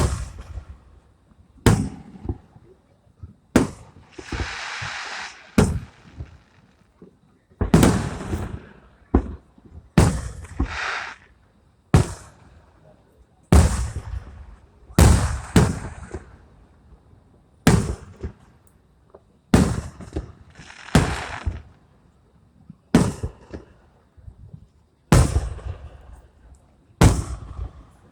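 Fireworks display: aerial shells bursting one after another with sharp bangs, about one every one and a half to two seconds. Some bursts are followed by a second or two of hiss.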